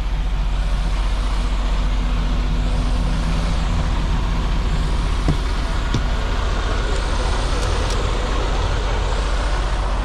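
Steady road noise and low engine drone heard inside a moving car's cabin, with a couple of faint clicks.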